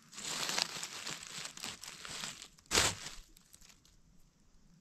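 Footsteps crunching and rustling through dry forest litter and undergrowth, dense for the first couple of seconds, with one louder crunch a little under three seconds in, then only a few faint crackles.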